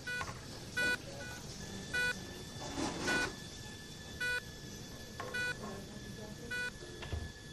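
Hospital patient monitor beeping, about six short even beeps roughly once a second, over a steady background hum with faint distant voices.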